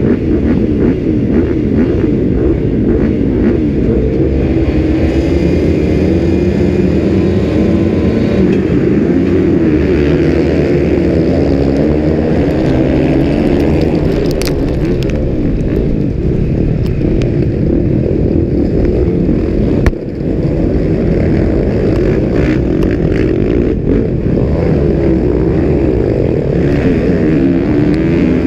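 Motocross bike engines at racing throttle, heard from the rider's helmet camera, the pitch rising and falling repeatedly as the rider accelerates and shifts, with the other bikes of the pack running close by.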